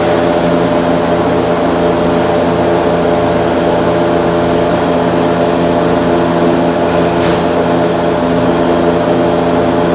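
Toyota Corolla's four-cylinder engine idling steadily with the hood open.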